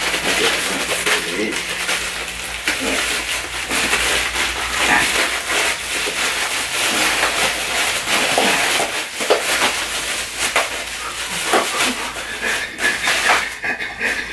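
Plastic packaging crinkling and tearing as a parcel mailer and the plastic bag inside it are ripped open by hand: a dense, continuous crackle of sharp crinkles that thins out near the end.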